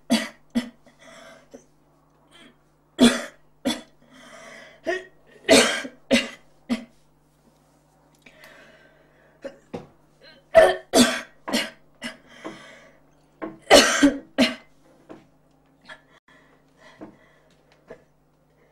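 A person coughing in repeated harsh fits of two or three coughs at a time, with quieter breathing between the fits.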